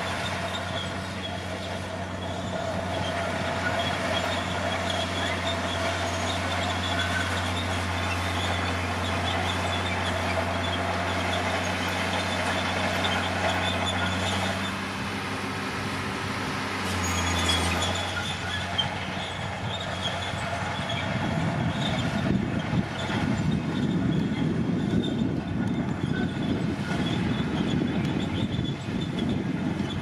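Komatsu D60P crawler bulldozer working under load: its diesel engine running steadily while the steel tracks clank and squeal as it shoves dirt with the blade. The engine note shifts about halfway through, and the track clatter grows louder and rougher in the second half.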